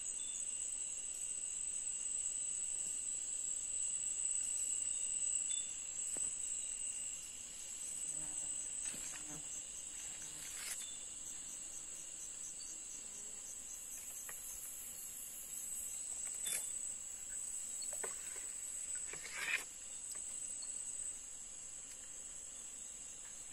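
Insects buzzing steadily: a continuous high-pitched drone with a weaker, lower whine beneath it. A few short knocks or rustles break in, the loudest about three-quarters of the way through.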